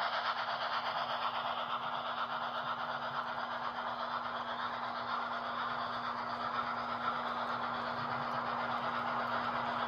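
HO-scale model passenger train rolling past on model track: a steady rolling rattle of small metal wheels on rail, with a steady low hum underneath.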